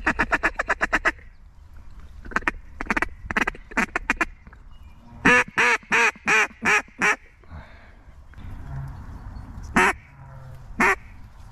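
Mallard duck call blown by a hunter to work incoming mallards: a fast run of short quacks at the start, a few scattered quacks, then a string of six loud quacks in the middle and two single quacks near the end.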